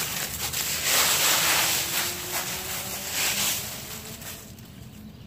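Dry fallen leaves rustling and crackling as a puppy plays and digs in a leaf pile, loudest in the first half and quieter near the end.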